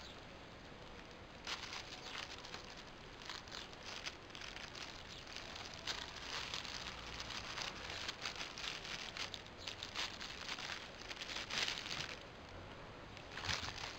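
Thin plastic carrier bag rustling and crinkling in irregular bursts as a kitten moves about on it, easing off briefly near the end before one more crinkle.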